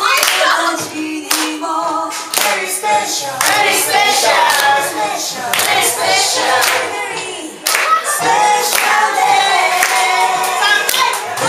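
A group of people singing together while clapping their hands.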